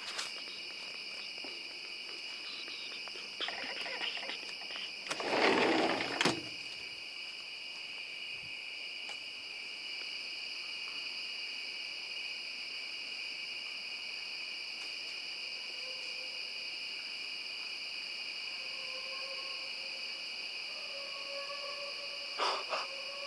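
A steady, high chorus of night insects, with a short rough noise burst about five seconds in. From about two-thirds of the way through, faint long pitched calls of an unidentified animal rise over the chorus, like distant howling.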